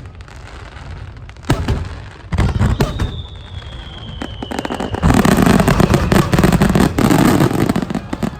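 Aerial fireworks bursting: a few separate bangs, then a whistling shell falling in pitch, then a dense rapid-fire volley of shells crackling and banging together for about three seconds before it cuts off abruptly near the end, the finale barrage of the show.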